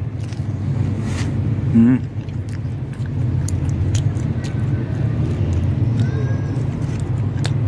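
A steady low outdoor rumble, with a few faint clicks and one short voice sound about two seconds in.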